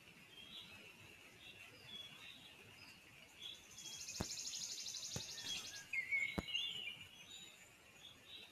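Faint forest birdsong: small songbirds repeating short high notes, with a rapid high buzzing trill for about two seconds mid-way and a louder call near the end. Three sharp clicks sound about a second apart in the middle.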